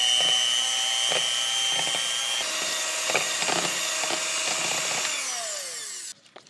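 Electric hand mixer running with its beaters in soft butter, a steady motor whine with scattered clicks of the beaters in the bowl. Its pitch shifts about two and a half seconds in, then the motor winds down with a falling whine and stops near the end.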